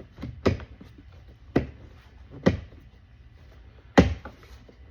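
Plastic window-switch housing and door trim of a Volkswagen CC being handled and snapped back into place: four sharp clicks and knocks, the loudest near the end.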